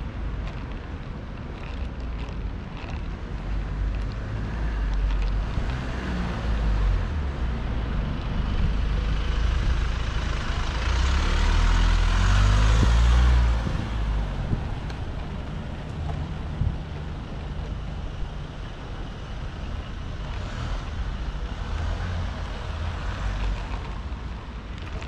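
Street traffic, with a motor vehicle passing close by. Its engine and tyre noise build up to a peak about halfway through, then drop away fairly suddenly, over a steady low rumble of traffic.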